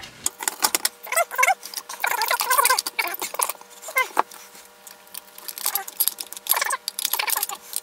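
Plastic case of a 12 V sealed lead-acid battery scraping and squeaking as it is slid into a UPS's sheet-metal chassis, with scattered clicks and knocks of handling.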